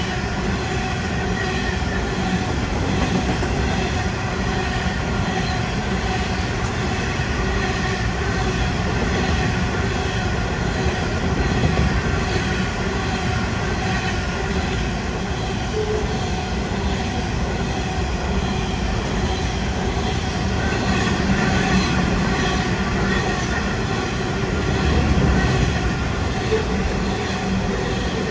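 Long coal train of hopper wagons rolling past close by: a continuous rumble of steel wheels on the rails with steady squealing tones from the wheels.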